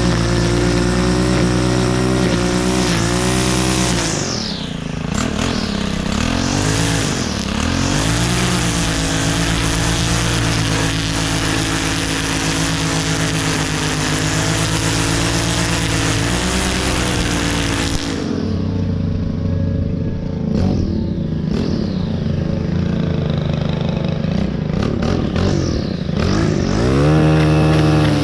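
STIHL FS 131 R string trimmer's 4-MIX engine running at high revs as the line cuts grass, briefly let off and squeezed back up a few times. About two-thirds of the way through it drops to lower revs that rise and fall, then revs up again near the end.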